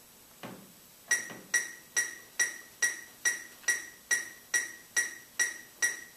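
Metronome clicking at a steady tempo of a little over two beats a second, each click an identical short, high ping. It starts about a second in, after a soft knock.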